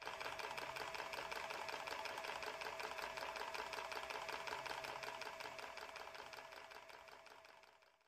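A fast, even mechanical clatter of about eight taps a second, with a steady tone under it, fading out over the last two seconds.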